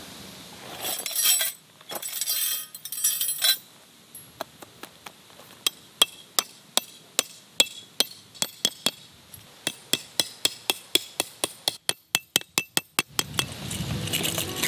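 Metal tent stakes being hammered into the ground: a long run of sharp, clinking strikes, about two a second, quickening near the end. A few bursts of rustling come first, and music starts near the end.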